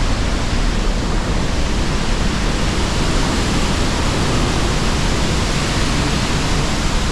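Pailón del Diablo waterfall: a loud, steady rush of falling water, unbroken throughout.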